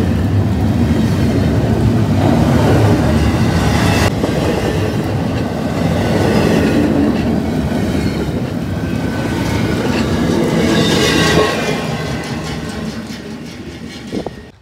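Double-stack intermodal freight train rolling past close by, the steel wheels of its loaded well cars rumbling and clacking over the rail joints, with a sharp knock about four seconds in. The sound fades over the last few seconds as the end of the train moves away.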